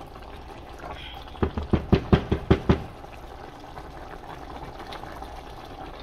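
A plastic spatula knocks about six times in quick succession against the rim of a large pot, over the steady bubbling of a simmering leafy stew.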